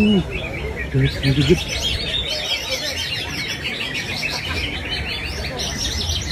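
Cucak ijo (greater green leafbird) singing a fast, unbroken run of high chirps and trilled phrases.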